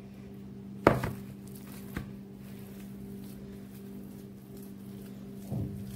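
A sharp knock about a second in as the green plastic mixing bowl is set down on the table, a light click a second later, and a soft dull thump near the end as the risen dough is handled, over a steady low hum.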